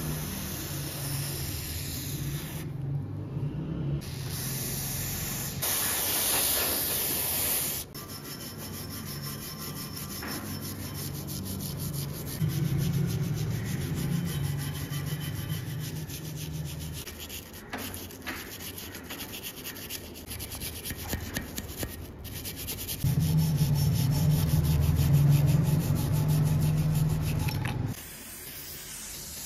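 Sanding: abrasive rubbing strokes on an old hatchet, in a series of short clips that cut abruptly from one to the next, loudest near the end.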